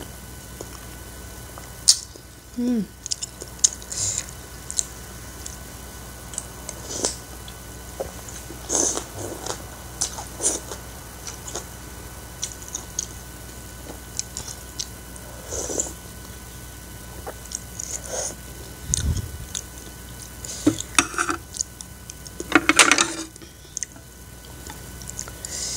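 Close-miked eating sounds of a person eating instant noodles and fried egg: soft chewing and lip smacks with scattered light clicks of a fork and spoon. A brief falling hum comes about two and a half seconds in, and a louder, longer burst of eating noise comes near the end.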